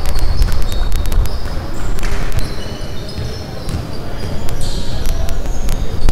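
Basketball game in a gym: the ball bouncing on the court, sneakers squeaking in short high chirps, and players calling out.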